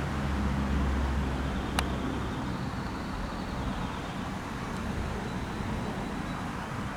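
Steady low rumble of distant engine noise, heaviest in the first two seconds, with a single sharp click about two seconds in.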